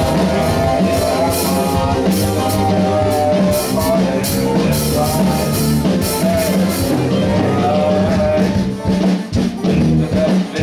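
Live band jamming: a drum kit with cymbal hits plays over bass and keyboard lines. The cymbal hits drop out about seven seconds in, and the playing thins toward the end.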